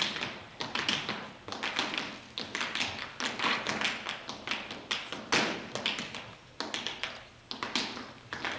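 Tap shoes striking a stage floor in fast, rhythmic runs of taps, phrased in clusters with short breaks between them.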